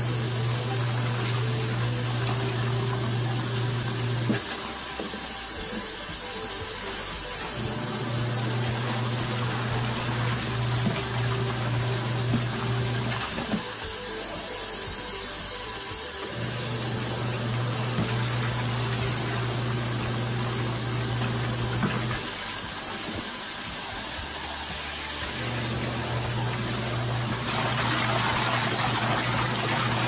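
Twin-tub washing machine's wash motor humming as it drives the pulsator in spells of about five seconds, stopping for about three seconds between each as the wash action reverses direction. Water sloshes in the tub throughout, with a louder rush of water near the end.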